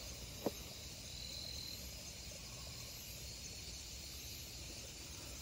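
Steady high-pitched chorus of night insects, with one brief louder note about a second in and a soft tap about half a second in.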